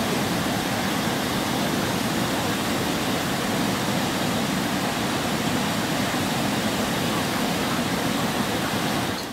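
Steady rushing of the Salto Tembey waterfall, several streams of water pouring over a rock ledge into a river pool.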